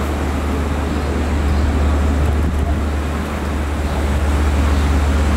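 A steady, loud low engine rumble, with a wash of outdoor noise over it.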